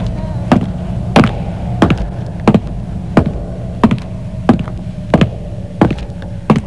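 Gramophone needle clicking in the run-out groove of a record at the end of the song, a sharp click about one and a half times a second over a steady low hum.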